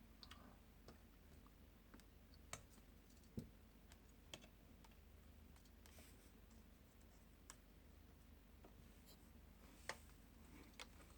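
Faint, scattered clicks and light taps of small parts and a screwdriver on a laptop as it is reassembled. There are about eight irregular clicks, the sharpest about three and a half seconds and ten seconds in.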